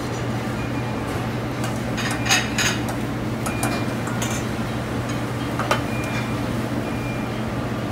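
Restaurant kitchen at work: scattered clinks and clatters of metal pans, ladles and plates over a steady low hum, with a cluster of clinks about two seconds in.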